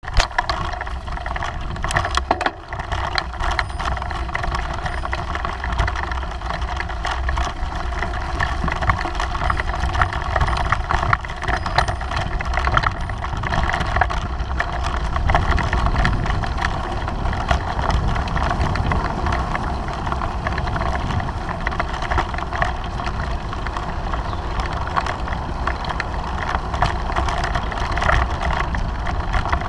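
Bicycle riding over bumpy meadow grass, heard through a bike-mounted action camera: a steady low rumble of wind and ground noise with many small knocks and rattles from the frame and mount.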